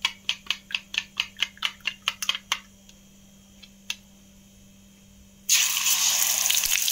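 Egg being beaten in a bowl, the utensil clicking against it about four to five times a second, stopping after about two and a half seconds. About five and a half seconds in, the beaten egg is poured into hot oil in a kadai and sets off a sudden loud sizzle.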